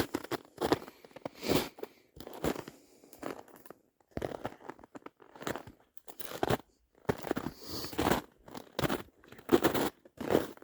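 Footsteps crunching on the ground, an uneven step about once a second.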